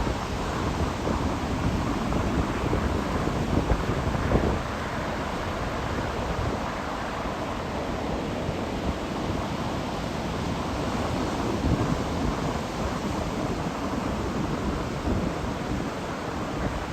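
Strong wind buffeting the microphone over the steady noise of surf breaking on the beach. The rumble is a little heavier for the first four and a half seconds, then eases slightly.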